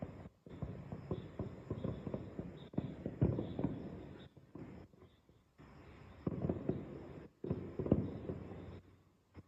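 Aerial fireworks going off in a rapid run of pops and crackles, with the loudest bangs about three seconds in and again just before eight seconds.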